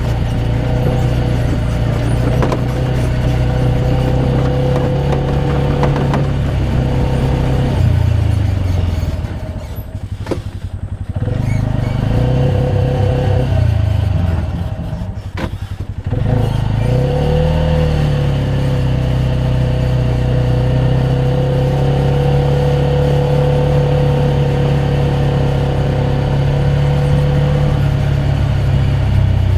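An engine running steadily close by. It slows down and drops in level about eight seconds in, and again about fifteen seconds in, each time coming back up to speed.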